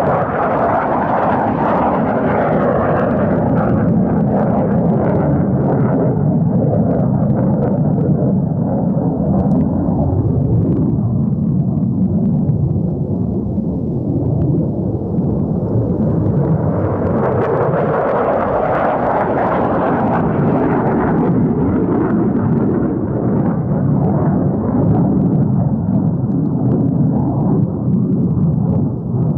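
F-16 fighter jet engine noise as the jet flies past: a loud, steady rumble that swells near the start and again about 17 to 21 seconds in.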